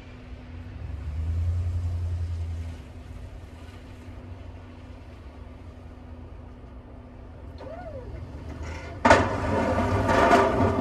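Pickup truck with a snow plow running at a distance, its engine hum swelling briefly, then about nine seconds in a sudden loud grinding scrape starts and keeps on as the steel plow blade drops onto the pavement and pushes snow.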